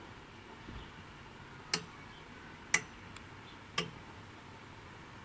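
Three sharp clicks, about a second apart, over quiet room tone.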